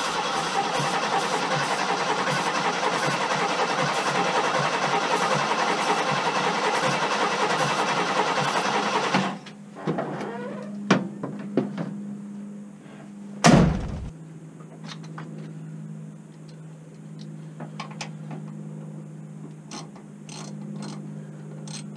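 Starter motor cranking the 1974 Ford F-350's 390 V8, which turns over without catching, for about nine seconds before the cranking stops abruptly. A few clicks and one loud knock follow, over a low steady hum.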